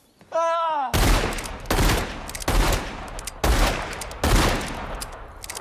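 Revolver gunfire from a film soundtrack: five loud shots a little under a second apart, each echoing, with fainter cracks between them. A short voiced cry comes just before the first shot.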